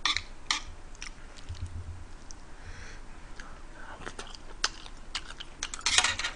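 A person chewing a mouthful of fried chicken and rice cakes, with short wet mouth clicks and smacks scattered through it and a denser cluster of them near the end.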